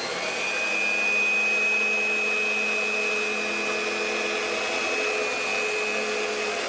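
Electric round-knife cloth cutter (JAKTEC) running steadily with a constant high whine as its blade cuts through folded fabric.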